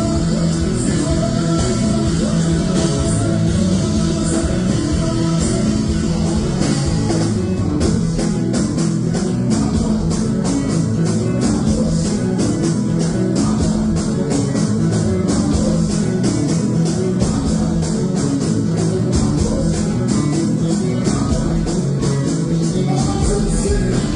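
Konpa band music with guitar, bass and drums; a fast, steady cymbal beat comes in about eight seconds in.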